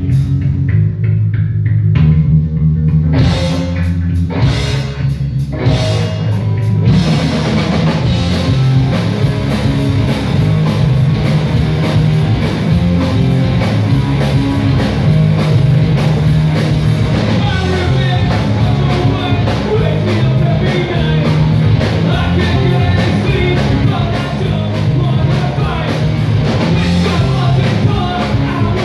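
Live rock band of electric guitars, bass guitar and drum kit playing a song through the PA, with singing. It opens with a sparse section of accented hits over held low notes, then about seven seconds in the full band kicks in with driving drums and constant cymbals.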